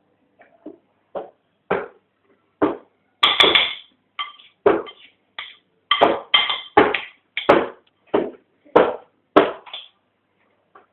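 A metal spoon repeatedly knocking against a dish or tray while a baby is fed: about fifteen irregular taps, each with a short ringing decay, the loudest around the middle.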